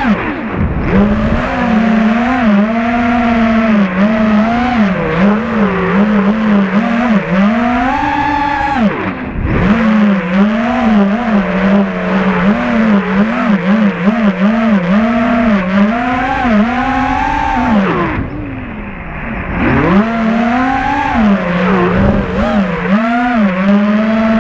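FPV racing quadcopter's brushless motors and propellers whining, the pitch rising and falling constantly with the throttle. The whine dips away three times, about half a second in, around nine seconds in and around eighteen seconds in, as the throttle is cut, then climbs back. It is heard close up from the camera mounted on the quad.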